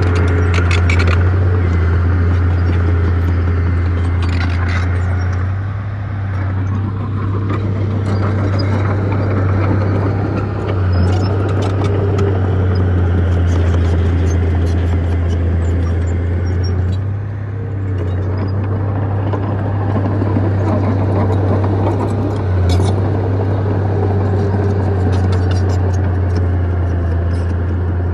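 Bulldozer's diesel engine running steadily under load with a strong low drone. The drone eases briefly a few times, and there are scattered sharp metallic clicks.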